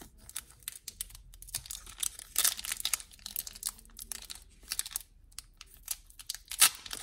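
Foil wrapper of a 1995 Fleer Metal football card pack being peeled and torn open by hand: a run of sharp crackles and crinkles, loudest about two and a half seconds in and again near the end.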